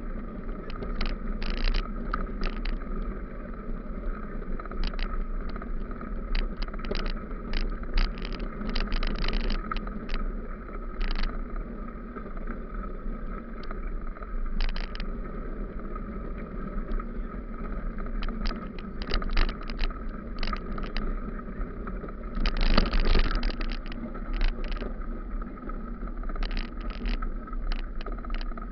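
Bicycle rolling over a rough gravel dirt road, heard up close: a steady rumble with frequent sharp rattles and clicks as it jolts over stones, and a longer burst of rattling about 23 seconds in.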